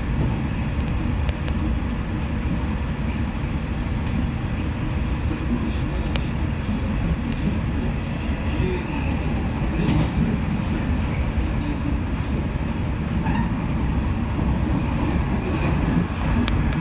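415-series electric multiple unit running along the line, a steady rumble of wheels and motors heard from inside the train.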